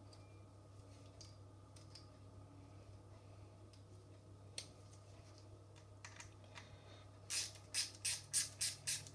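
Torx screws being driven back into an air-suspension valve control block: a few faint clicks of small parts being handled, then from about seven seconds in a quick, regular clicking, about three a second, of a ratcheting screwdriver winding the screws in.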